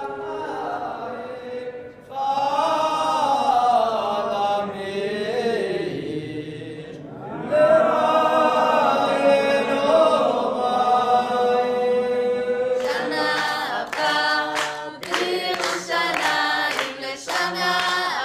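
A group of voices singing together, unaccompanied, in long, held phrases. About two thirds of the way through, hand clapping starts and keeps a steady beat of about two claps a second under the singing.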